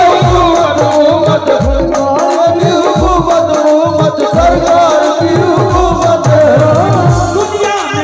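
Live qawwali-style devotional music: harmonium and a singing voice carry a wavering melody over a steady hand-drum beat, its deep strokes sliding down in pitch about twice a second.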